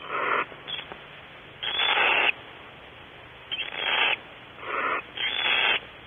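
Barn owl giving a series of harsh, hissing screeches: about five calls, each around half a second long, over a steady background hiss.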